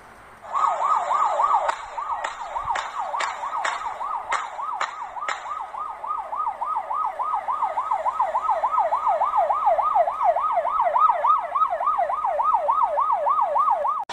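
Emergency-vehicle siren in a fast yelp, wailing up and down about four times a second and growing louder. A quick series of about nine sharp cracks rings out over it in the first few seconds.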